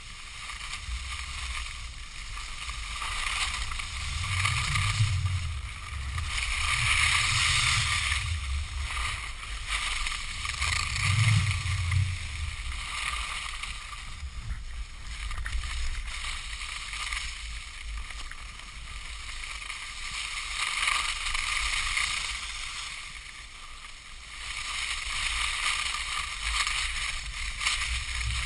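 Skis sliding over snow, a steady hiss that swells and fades, with wind buffeting the pole-mounted GoPro's microphone in a few low rumbles.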